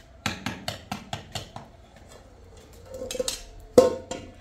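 Metal spoon knocking and scraping against a metal cooking pot while stirring: a quick run of knocks, about five a second, then scraping, and one loud clank with a short ring near the end.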